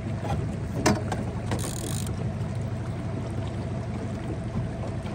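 A small boat's motor hums steadily under the wash of a fast river. About a second in there is a sharp click, and just before two seconds a short ratcheting buzz comes from the fishing reel as a hooked fish pulls on the bent rod.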